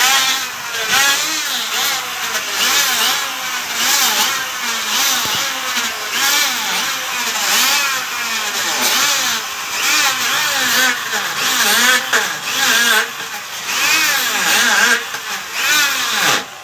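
Wood-planing machine running and cutting timber, its motor pitch repeatedly dipping and rising over high cutter hiss.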